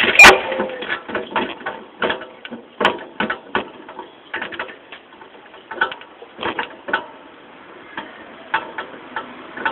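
Irregular clicks and knocks from the rear of a cross bicycle, around its hydraulic motocross shock absorber, rear wheel and chain, with one sharp knock just after the start.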